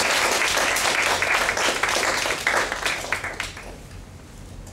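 Applause from a small audience, a dense patter of hand claps that fades out about three and a half seconds in.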